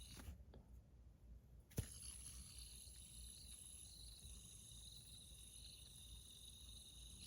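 Faint handling of a zirconium Motorworks Mini Ergo fidget spinner: a few small clicks, then one sharp click about two seconds in, against a faint steady high hum.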